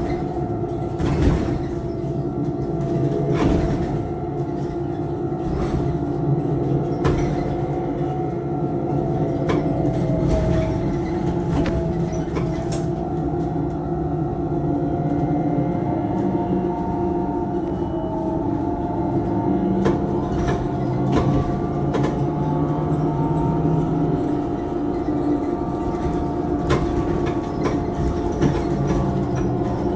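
Inside a MAZ 203T trolleybus under way: its electric drive gives off a steady hum of several tones that drift a little in pitch as speed changes, over a low road rumble. Short knocks and rattles from the body come now and then.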